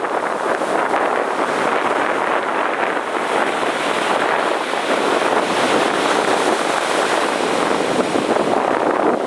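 Heavy ocean surf breaking on the shore in a continuous, steady rush of noise.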